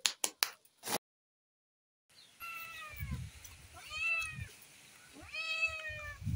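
A domestic cat meowing three times, about a second and a half apart, each call falling in pitch. Dull low thuds sound around the calls, and a few sharp clicks come in the first second.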